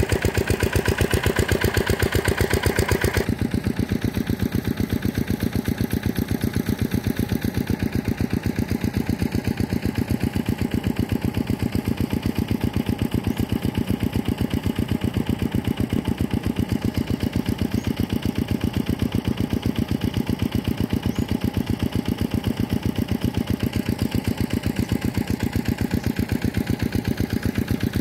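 Diesel engine driving an irrigation water pump, running steadily with a fast, even beat. About three seconds in, the sound abruptly becomes a little quieter and duller.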